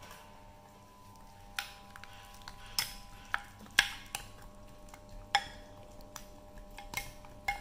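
Yellow plastic spatula stirring a thick, moist mixture in a glass mixing bowl, knocking and scraping against the glass in irregular clicks and taps, the loudest about four seconds in.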